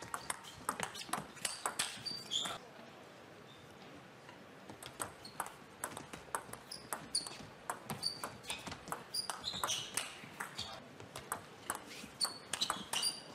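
A celluloid-style table tennis ball clicking back and forth off rackets and the table in fast rallies, with short high squeaks in between. A pause of a second or two falls near the middle.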